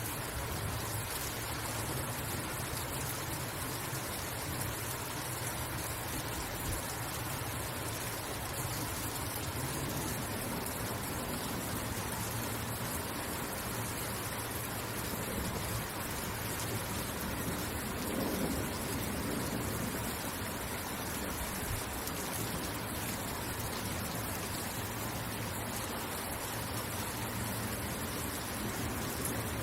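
Steady rain falling, an even hiss of rain on surfaces, with a brief low swell about two-thirds of the way through.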